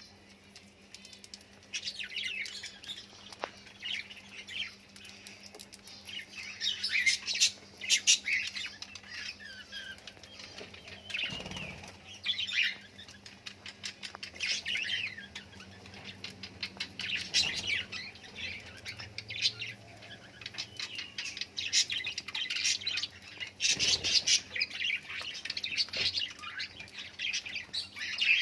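Small pet parrots chirping and chattering in quick, irregular bursts of short high, gliding calls, with a couple of brief wing flutters.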